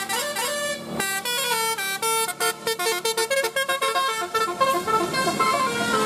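Telolet multi-tone horn on a Jetbus 3+ coach playing a fast tune of short, stepping notes. Near the end the passing bus's engine and tyre noise rise beneath the horn.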